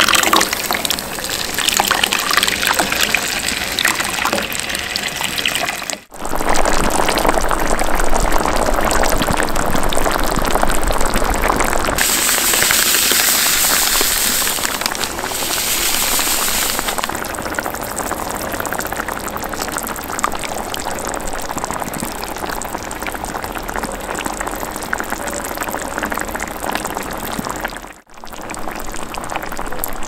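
Tomato juice gushing from a jar onto mackerel and vegetables in a metal roasting pan, a continuous pouring of liquid. A brighter hiss runs for a few seconds in the middle.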